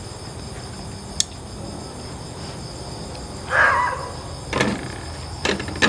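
Insects chirring steadily in the night background. A single sharp click comes about a second in, a short squeak about three and a half seconds in, and a few more clicks near the end.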